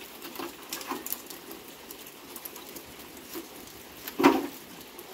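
Scattered small crackles and light patter from a freshly lit wood bonfire starting to catch in drizzle, with one louder short sound about four seconds in.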